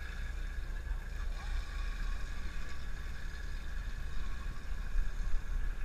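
A sportfishing boat's engine running steadily: a low rumble with a faint, even whine above it.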